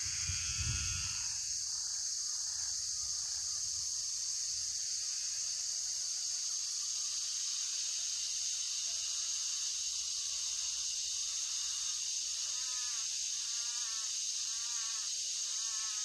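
A steady high-pitched drone of evening insects, crickets and cicadas, in Australian forest at dusk. There is a brief low rumble about a second in. From about three-quarters of the way through, a repeated wavering animal call comes in, roughly once a second.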